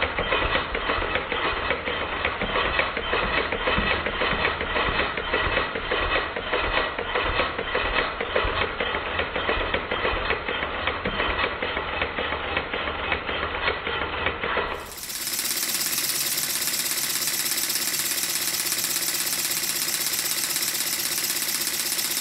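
Stuart triple expansion model steam engine running on compressed air, a fast, even mechanical clatter from its loose connecting rods and valve gear. About 15 s in the sound changes to a smoother, steadier run at a different speed.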